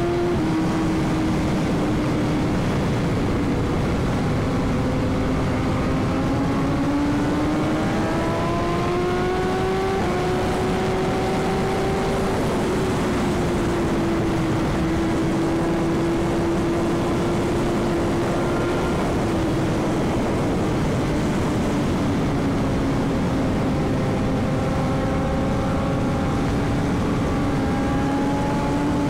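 Superbike engine running at a steady highway cruise, its pitch rising and falling gently with the throttle, over a constant rush of wind noise.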